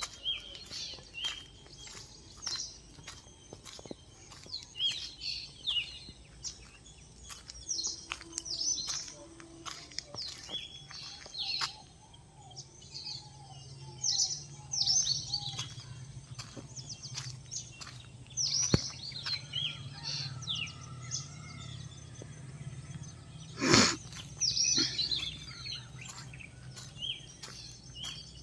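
Small birds chirping, many short high chirps that fall in pitch, repeated throughout. A low steady hum sits underneath through the second half, and a single sharp knock comes near the end.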